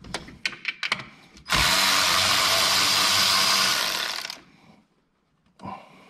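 A cordless ratchet runs steadily for about three seconds, spinning out a 10 mm coil-pack bolt, then winds down. It follows a few light clicks of the socket being fitted onto the bolt.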